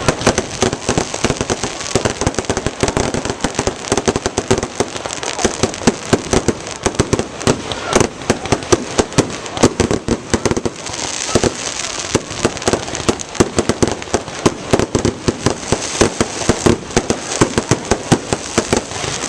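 Fireworks going off in a rapid, unbroken barrage of sharp bangs and crackles, many a second, with a hissing, crackling wash about eleven seconds in.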